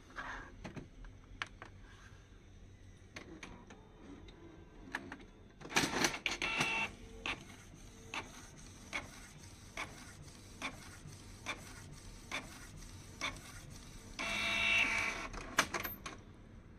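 Canon PIXMA 3411 inkjet printer printing a nozzle check page. A motor whirr starts about six seconds in, followed by the print mechanism clicking at an even pace just under once a second. A second, longer whirr comes near the end.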